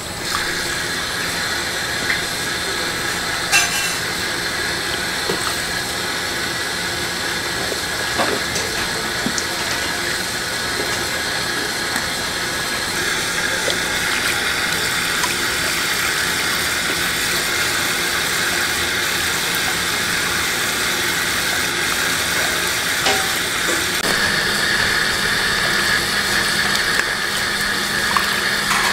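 Tap water spraying from a sink faucet onto raw whole chickens in a water-filled stainless-steel sink, a steady rush of running water with a few faint clicks.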